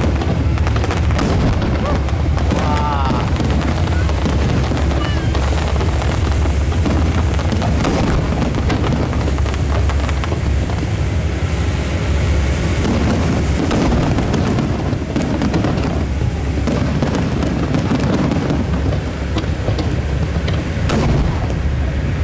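Aerial fireworks going off in a continuous barrage of booms and crackles.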